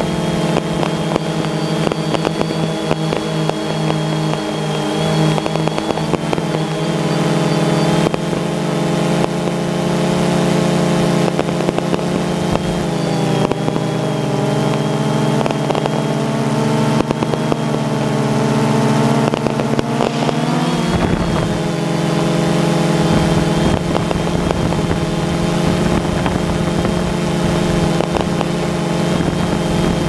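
DJI Phantom 2 quadcopter's electric motors and propellers running as a steady buzzing hum, heard from the camera on the drone, with a thin high whine above it. The pitch drops a little about 13 seconds in and rises back around 21 seconds as the throttle changes.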